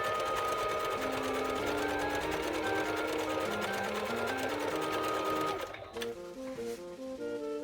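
Jaguar CF3104 household sewing machine stitching at speed during a test sew after cleaning and oiling, running with a fast, even needle rhythm, then stopping suddenly about five and a half seconds in.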